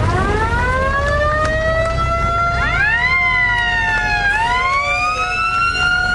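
A mechanical siren winding up from a low pitch to a steady wail, with a second siren tone sweeping up, dropping and rising again partway through. Low running of passing WWII jeep engines underneath.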